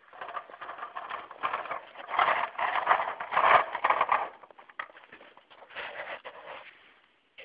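Metal toy car scraping and rattling as it is pushed by hand over a gritty concrete floor, in rough bursts that are loudest around the middle, then a shorter scrape near the end.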